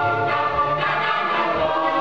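A folk ensemble's chorus singing a Polish folk song, with a low beat about once a second beneath the voices.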